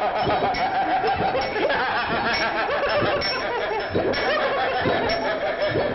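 Several people laughing and sniggering at once, overlapping without a break.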